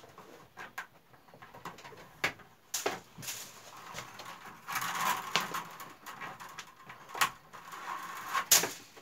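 Willow stakes and a thin willow band rustling and clicking against each other as the band is woven in and out between the stakes of a basket, with sharp ticks throughout and the loudest click near the end.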